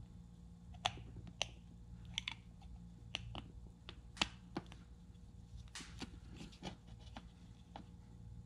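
Irregular small clicks and taps of a plastic RV marker light housing and its wires being handled and fitted against the trailer wall, about a dozen in all, over a faint steady low hum.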